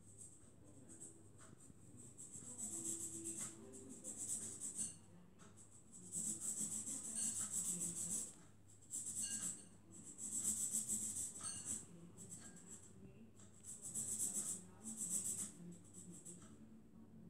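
Felt-tip marker rubbing across paper while colouring in an area. It comes as a series of scratchy, hissing strokes, each lasting from about half a second to two seconds, with short pauses between them.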